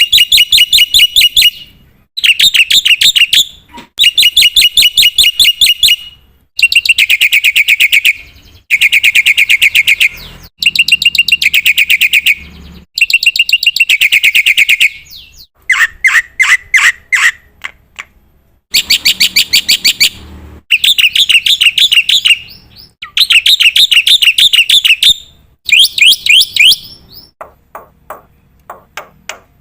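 Black-winged starling (jalak putih) singing in loud bursts of rapid chattering notes, each burst one to two seconds long with short pauses between. About halfway through, one run of notes is lower, and near the end the song thins to scattered single notes.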